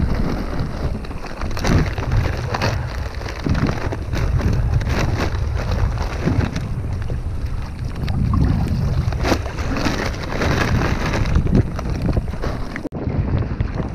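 Wind buffeting an action camera's microphone out on the open sea, with repeated sharp crackles and knocks from a plastic bag and gear being handled on a kayak. The sound cuts off abruptly near the end.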